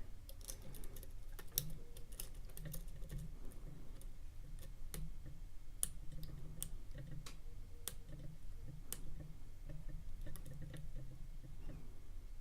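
A lock pick working the pins of a pin-tumbler lock: faint, irregular small clicks and ticks as the pins are probed and set under tension.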